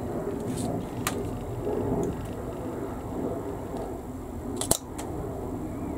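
Side cutters snipping through a small plastic model part, one sharp click about three-quarters of the way in followed by a smaller one, with a few faint clicks of tools and plastic being handled before it.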